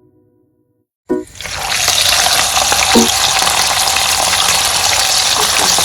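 Whole chicken frying in hot oil: loud, steady sizzling and crackling that starts suddenly about a second in, after a moment of silence.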